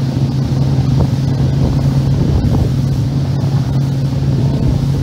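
Small speedboat's engine running at a steady cruise, a constant low drone, with wind buffeting the microphone and water rushing along the hull.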